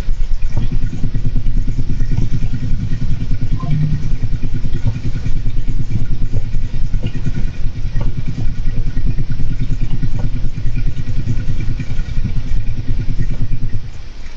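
Golden hamster running in its exercise wheel: a steady, rapid, low rattling rumble that starts about half a second in and stops just before the end.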